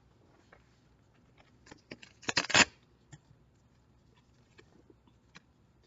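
A picture book being handled: a brief papery rustle of a page about two and a half seconds in, with a few light clicks scattered before and after.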